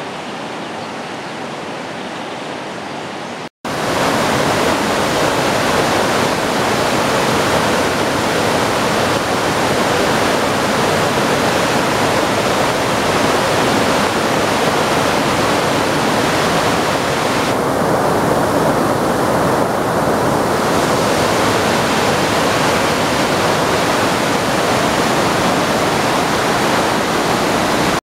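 Rushing water: a river flowing steadily, then after a sudden break about three and a half seconds in, the louder, steady rush of a waterfall pouring over rocks.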